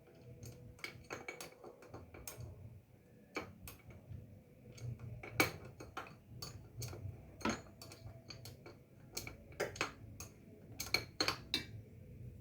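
Irregular metallic clinks and taps of tools and engine parts being handled during motorcycle engine assembly, with a dozen or more sharp knocks spaced unevenly.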